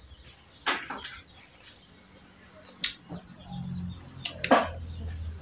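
Close-miked eating of rice and curry by hand: chewing with a few sharp, wet lip smacks.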